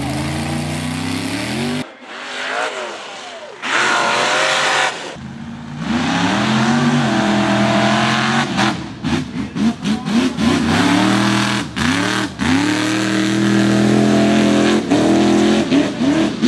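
Mega mud truck engine revving hard on a dirt obstacle course. The revs rise and fall, with a string of quick throttle stabs around the middle, then hold high toward the end.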